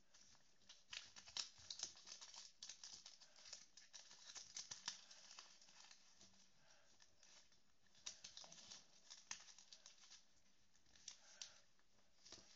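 Paper being folded and creased by hand: faint crinkling and rustling with small sharp crackles, busiest in the first half, again about eight seconds in and briefly near the end.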